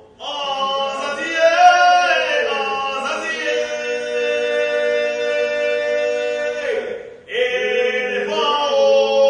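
Men singing a football supporters' chant unaccompanied, in long held notes, with a short break for breath about seven seconds in.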